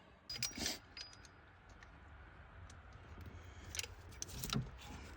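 Hand tools and metal parts clinking: a few short metallic clicks and clatters, a cluster about half a second in and more around four seconds.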